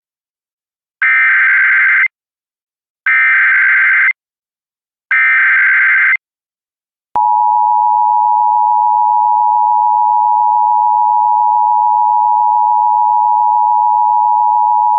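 Emergency Alert System SAME header: three bursts of warbling digital data tones, each about a second long, two seconds apart. About seven seconds in, the EAS two-tone attention signal starts and holds steady for about eight seconds, announcing a fire warning.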